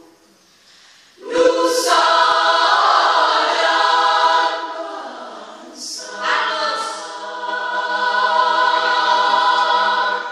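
Women's choir singing a cappella in several parts. After a brief pause the voices come in together about a second in and hold a chord, fade away, then come in again at about six seconds and hold until they break off near the end.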